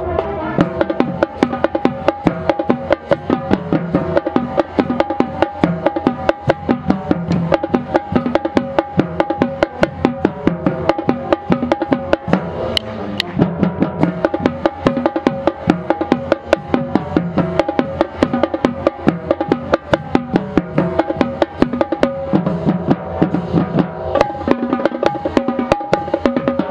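Marching band playing the school fight song: brass holding a melody over a drumline. The tenor drums (quints) are struck right at the microphone, and their quick, even strokes stand out loudest.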